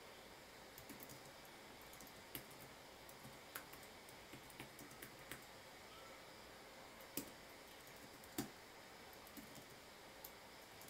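Faint computer keyboard typing: irregular, scattered keystrokes, with two louder clicks about seven and eight and a half seconds in.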